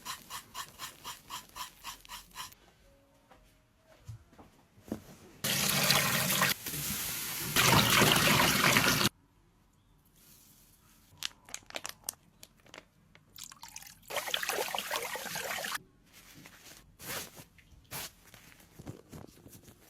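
Running or spraying water in a loud rush of a few seconds, cut off suddenly, with a shorter, quieter rush later. Rapid even ticking comes at the start, and small scrapes and clicks fall between the rushes.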